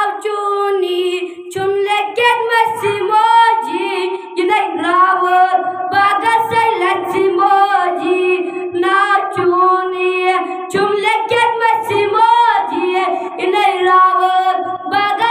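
A boy singing solo, with no instruments, in long wavering held notes, the phrases broken by short pauses for breath.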